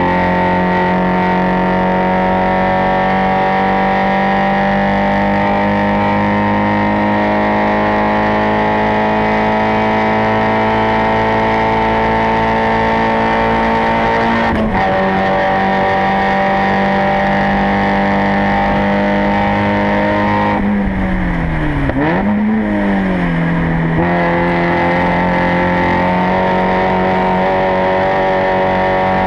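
Spec Miata's four-cylinder race engine at full throttle, recorded close to its exhaust, its pitch climbing slowly through the gear. About 15 s in the pitch drops sharply at an upshift and climbs again. Around 21 s the revs fall steeply with one quick blip, as for downshifts into a corner, then pick up again a few seconds later.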